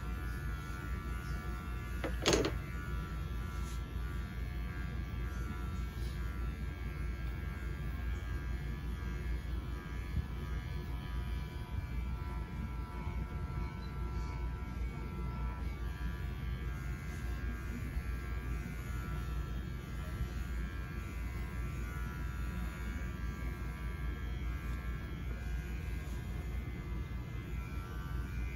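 Electric pet hair clippers running steadily during a dog's haircut, with one brief sharp sound about two seconds in.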